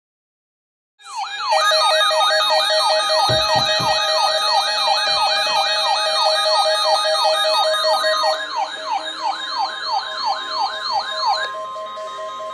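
Electronic alert siren yelping, its pitch sweeping up and down about three times a second, starting abruptly about a second in. Near the end it gives way to one steady alert tone, the kind that leads into an emergency alert message.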